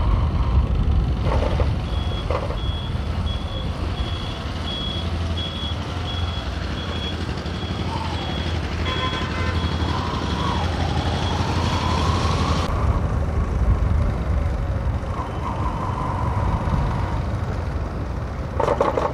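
Motorcycle engine running with wind and road noise. From about two seconds in, a high electronic beep repeats about twice a second for roughly ten seconds, then stops: the bike's turn-indicator buzzer, signalling the turn onto the main road.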